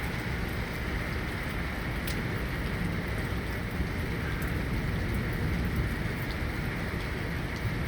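Steady thunderstorm rain falling, a continuous hiss with scattered sharp drop ticks.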